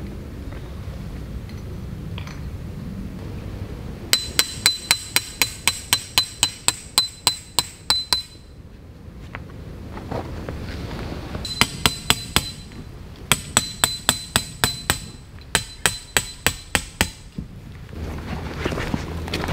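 Tent pegs being hammered into forest ground: four runs of sharp, ringing clinks, about three strikes a second, each run a few seconds long.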